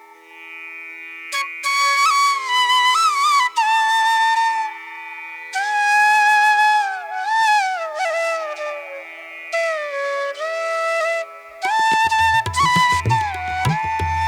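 Instrumental background music: a sliding, bending wind-like melody over a steady held drone, with drums coming in near the end.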